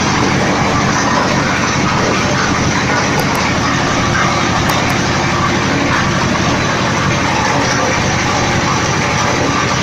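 Mustard oil expeller machine running steadily and loudly while pressing seed.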